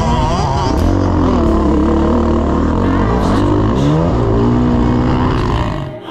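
Motocross bike engine heard close up from the rider's helmet camera, revving up and down through a dirt-track corner, its pitch rising and falling several times. The sound drops off abruptly near the end.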